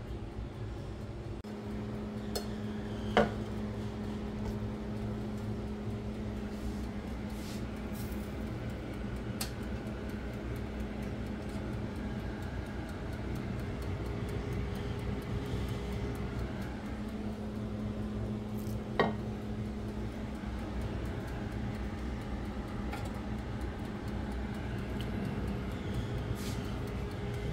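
Electric turbo-fan countertop oven running with a steady hum. Metal tongs clink sharply against the oven's wire rack twice, about three seconds in and again near two-thirds through, with a few lighter clicks between.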